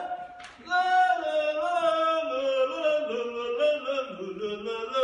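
A man singing a melody in long held notes that slide from pitch to pitch, with a short break about half a second in.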